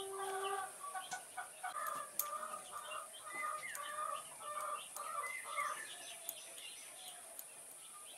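Chickens clucking: a rapid run of short calls that dies away about six seconds in.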